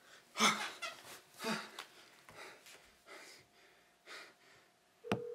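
A person breathing heavily, about five loud breaths roughly a second apart. Near the end a click sounds and a steady hum starts.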